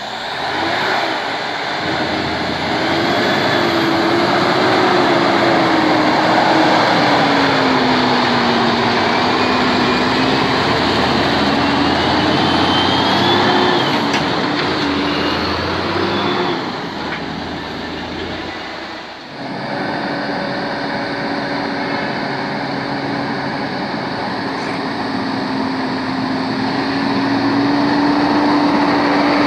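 Heavy tractor-trailer diesel engines running loud as the trucks pass, the engine note rising and falling over the first two-thirds. After a brief dip it gives way to a steadier, slowly climbing engine tone.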